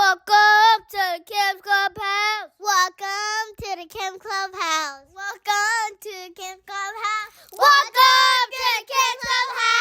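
A high voice singing a quick tune, short notes one after another on a mostly steady pitch, with a louder, longer-held phrase near the end.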